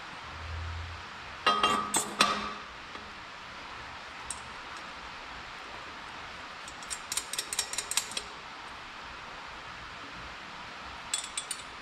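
Metal clanks and clinks of a wrench, bolts and a steel adapter flange as a turbocharger is bolted onto a custom T3-to-T4 exhaust adapter. A loud ringing clank comes about two seconds in, followed later by quick runs of sharp clicks around seven to eight seconds and again near the end.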